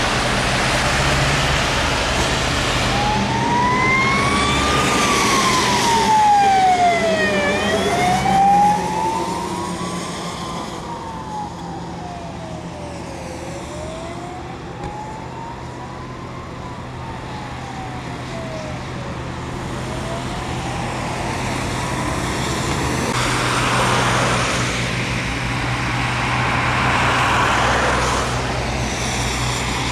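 Emergency vehicle siren in a slow wail, rising and falling about every six seconds and growing fainter, over steady road noise. Near the end, passing traffic swells louder twice.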